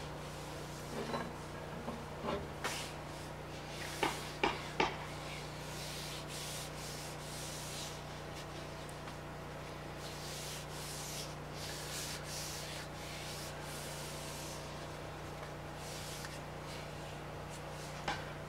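A hand rubbing along a freshly linseed-oiled wooden axe handle, in soft repeated swishes, with a few light knocks of the axe being handled in the first five seconds.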